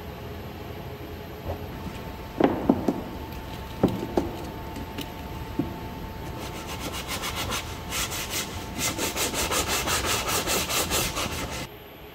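A few wooden knocks as plywood pieces are set in place, then a plywood edge being hand-sanded with sandpaper in quick back-and-forth strokes, about four a second, which stop suddenly near the end.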